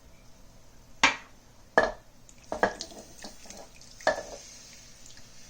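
Chopped canned tomatoes being tipped into a slow cooker: four wet plops about a second in, near two seconds, near three seconds and about four seconds in, with a few lighter knocks of the container between them.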